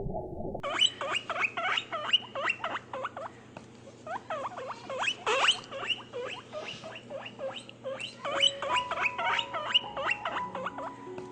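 A group of small animals squeaking and chirping: many short, overlapping squeaks that fall in pitch, starting about half a second in and thinning out for a moment around the middle.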